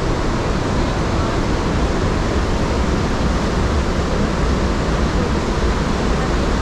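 Loud, steady rush of water falling at Iguazu Falls, an even noise with no breaks.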